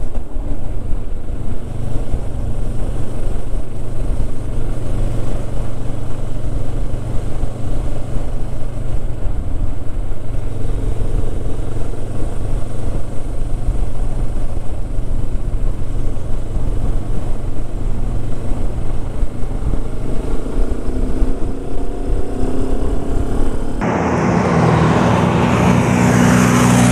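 Motorcycle engine running at a steady cruise under heavy wind noise on the bike-mounted camera's microphone, its pitch rising a little near the end. About 24 s in the sound cuts abruptly to several motorcycle engines passing close by, louder and brighter.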